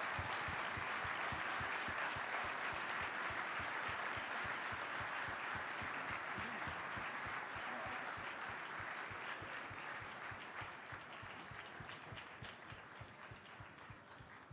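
Banquet audience applauding, a dense steady clapping that slowly dies away over the last few seconds.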